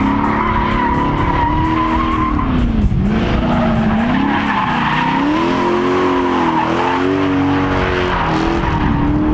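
A drift car's engine revving up and down while its tyres squeal in a steady, high skid.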